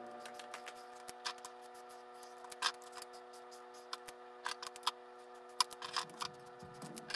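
Plastic marker caps clicking as they are pulled off and pushed back on, and markers set down on a tabletop: scattered sharp clicks, some in quick pairs. A faint held chord of background music sounds under them.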